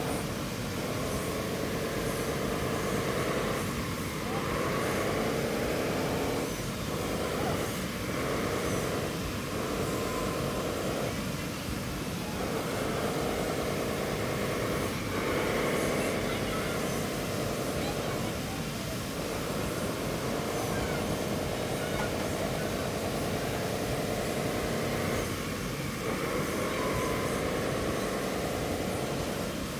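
Radio-controlled model wheel loader's electric motors whining as it drives over a sand pile. They come in runs of a few seconds with short breaks, the pitch rising at the start of each run and then holding steady.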